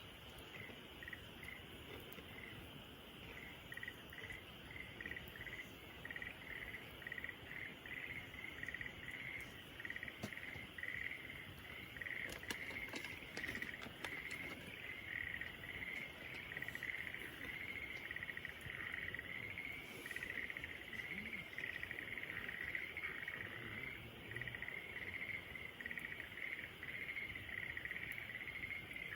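A steady chorus of crickets chirping in quick repeated pulses, growing somewhat louder a few seconds in, with a few faint crackles from a campfire around the middle.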